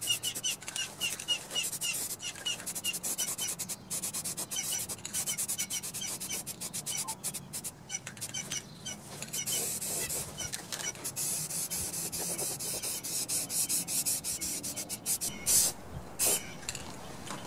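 Aerosol spray can of black engine enamel spraying in a run of short hissing bursts, with two longer sprays near the end.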